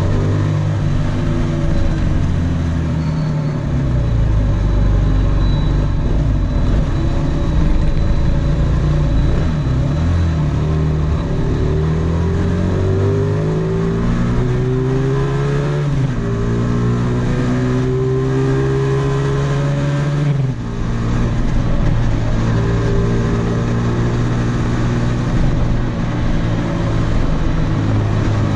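Small quadcopter's motors and propellers, heard from the camera on board, whining in several tones that glide up and down as the throttle changes, with a brief drop about two-thirds through.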